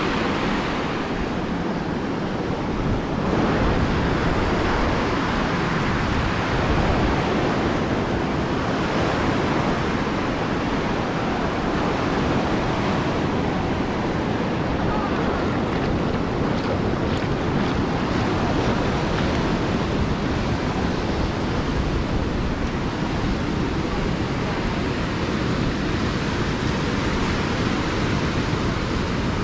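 Ocean surf breaking and washing on a beach, a steady wash of noise that swells a little a few seconds in, with wind buffeting the microphone.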